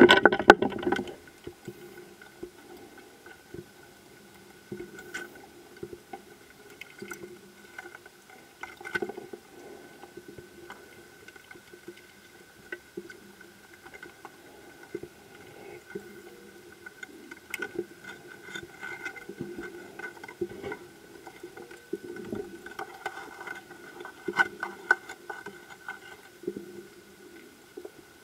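Underwater ambience: scattered sharp clicks and crackles over a steady hum, with a louder rush of noise in the first second.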